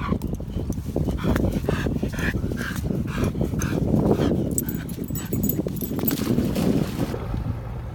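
A dog giving a rapid series of short, high-pitched cries, about three a second, that die away about halfway through, over wind noise on the microphone.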